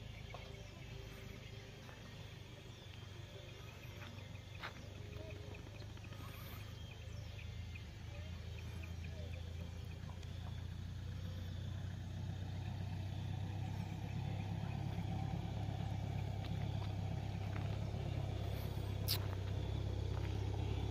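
A car's engine approaching, its low rumble growing steadily louder through the second half.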